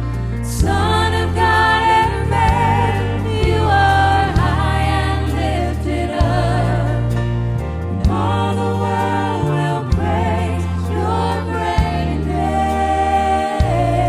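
Live gospel worship song: a woman's solo voice sings held, wavering notes over backing singers and a band with sustained bass notes and drum hits.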